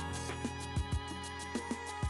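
Background music with a steady beat: drum hits and ticking cymbals under sustained instrument notes.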